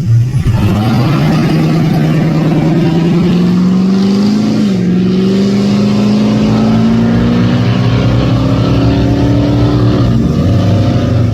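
1969 Oldsmobile Cutlass engine pulling the car through the gears. The engine note climbs slowly, drops at an upshift a little under halfway through, then climbs again and drops at a second shift near the end.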